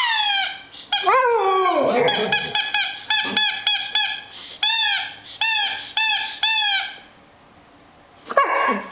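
Siberian husky 'talking': high-pitched whines and howl-like cries, a long falling one about a second in, then a quick run of short rising-and-falling yips about two a second, a brief pause, and one more cry near the end.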